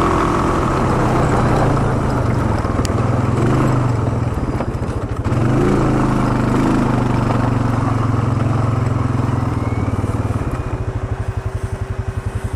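ATV engine running as the quad climbs a trail, then dropping to a pulsing idle for the last couple of seconds as the quad comes to a stop.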